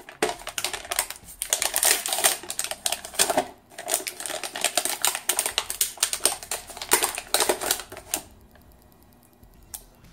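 Paper sticker label crackling and rustling in the hands as it is peeled from its backing, a rapid irregular crackle that stops about eight seconds in.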